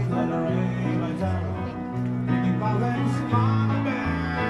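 Music: a tune with sustained bass notes that change about every second and a melody line over them.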